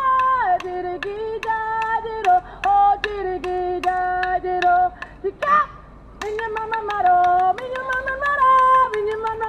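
A single high voice sings a traditional Aboriginal song (Yidinji) in long held notes that slide down from one pitch to the next. A sharp percussive beat keeps time about twice a second. The singing stops for about a second midway, then picks up again.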